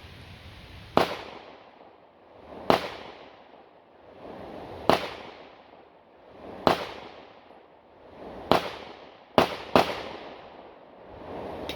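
Seven pistol shots in a timed drill: five spaced about two seconds apart, then a quick pair close together near the end.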